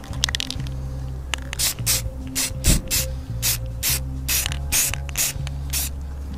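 Aerosol spray-paint can spraying in a quick series of short bursts, about two to three a second, starting about one and a half seconds in.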